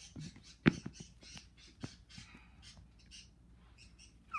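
Handling noise as plastic toy animal figures are moved about on a carpet: soft scrapes and taps, with one sharp knock a little under a second in and a smaller tap near two seconds.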